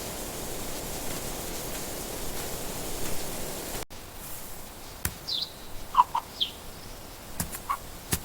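A steady hiss of noise, then, after a sudden cut, a few short high bird chirps scattered over the last few seconds along with several light clicks.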